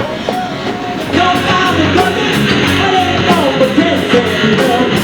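Rock band playing loudly: electric guitar and drums with a steady beat, and a singing voice.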